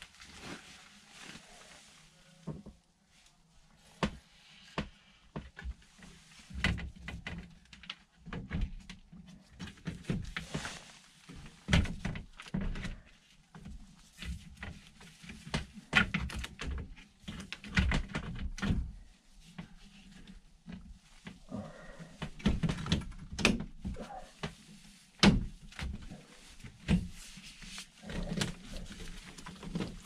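Sheet-metal air handler panel being worked into place over the evaporator coil: irregular knocks, thunks and scrapes of metal, some sharp and some dull, several a second at the busiest points.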